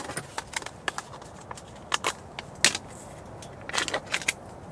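Plastic water bottle being handled on a table: irregular sharp crinkles and clicks, the loudest near the middle and a quick cluster about four seconds in.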